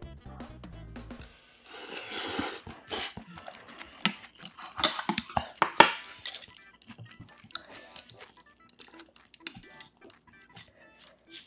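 Close-miked eating sounds: chewing a mouthful, paper tissue rustling and crinkling in the middle with a cluster of sharp crackles, then light clicks of chopsticks against dishes.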